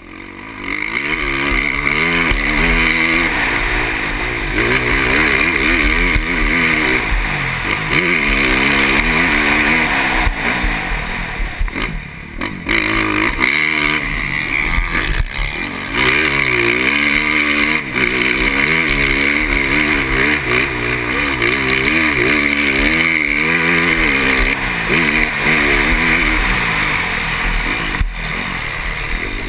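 KTM motocross bike's engine, heard close from the onboard camera, revving up and dropping back again and again as it accelerates and shifts around the track.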